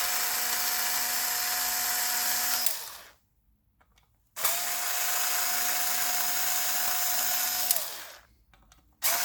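Black and Decker Li2000 cordless screwdriver's electric motor spinning screws on a power strip, run in two bursts of about three seconds, each winding down in pitch as the trigger is released, with a third start near the end.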